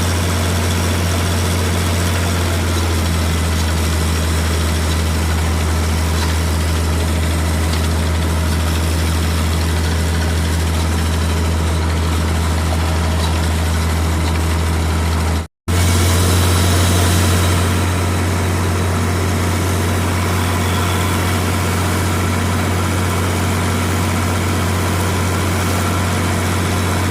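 Sullair 375 cfm portable diesel air compressor running steadily under load, a constant low engine hum. The sound cuts out completely for a moment about halfway through, then resumes as before.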